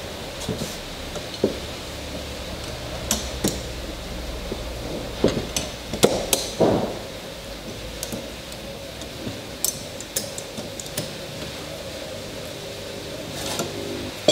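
Steel clamps on a glued wooden rail being set and tightened: scattered metallic clinks and knocks of the clamps against each other and the wood, the loudest cluster about halfway through.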